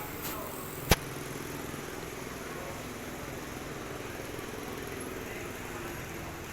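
A single sharp click about a second in, over a steady background hum.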